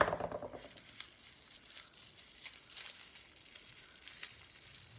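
Faint crinkling and rustling of a small package's wrapping being handled and unwrapped by hand, with light tearing.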